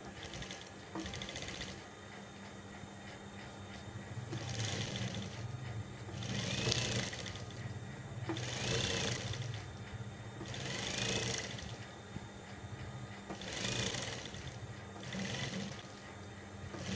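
Industrial sewing machine stitching in short runs of about a second each, repeated every couple of seconds, over the steady hum of its running motor.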